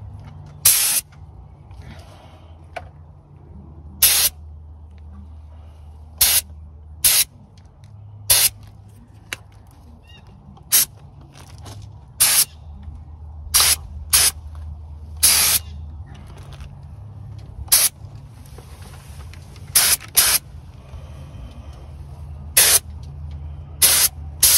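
Air-fed paint spray gun hissing in short trigger bursts, one every second or two, as base coat is dusted into hard-to-reach nooks and bolt heads. A steady low hum runs underneath.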